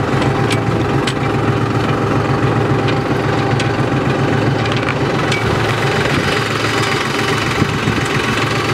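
Tractor engine running steadily with a low, even hum, with a few light rattles now and then.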